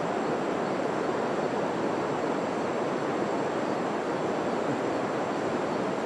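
Steady, even rush of river water flowing below the bridge.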